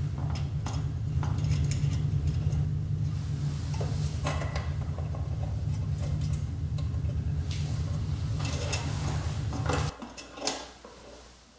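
Small metallic clicks and clinks of a screwdriver working the wire retaining clip and H7 bulb in a motorcycle headlight housing, over a steady low hum that cuts off suddenly near the end.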